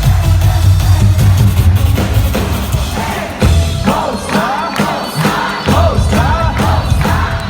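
Live worship band music, loud, as heard from within the audience, with heavy bass and drums and voices singing over it. The bass drops away briefly partway through.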